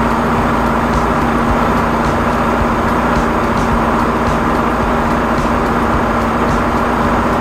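Drain-cleaning machine running steadily: a constant, unchanging engine drone with a steady hum and faint irregular ticking, while a line is fed down a storm drain to clear tree roots.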